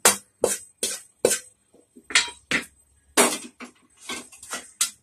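Metal spoon scraping roasted rava (semolina) in a black kadai, in short strokes: an even run of about two and a half a second, then after a short pause a slower, irregular run.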